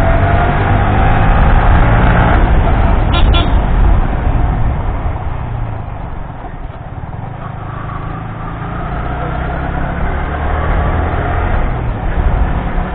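Yamaha R15 single-cylinder motorcycle engine running under way, with wind rush on the rider's mic. The engine note climbs steadily in the second half as the bike speeds up.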